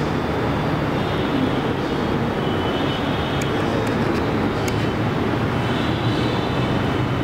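A steady, even rumble and rush of mechanical noise, like a fan or machine running, with a few faint clicks a little past the middle.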